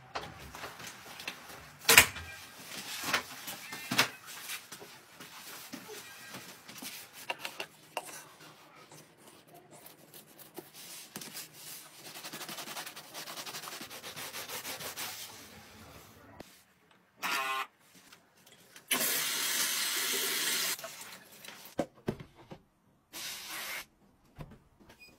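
A run of household handling sounds: a few sharp knocks and clicks, then a sponge scrubbing a sneaker with a soft, steady rubbing. Near the end comes a short buzzing burst, then a loud hiss lasting about two seconds.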